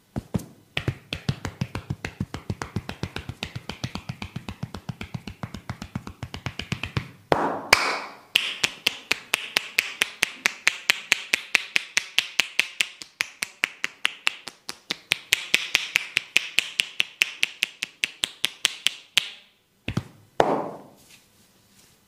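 Barber's hands striking the body in a fast, even percussive massage, about five strikes a second. The strikes are duller thumps for the first several seconds, then turn into sharper, crisper slaps, and stop about nineteen seconds in, followed by a couple of single slaps.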